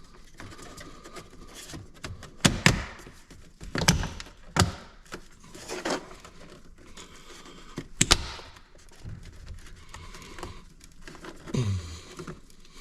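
Plastic dash trim on a Mustang being forced against its retaining clips by hand, giving a series of sharp knocks and clicks with quieter rustling between them; the loudest knock comes about eight seconds in.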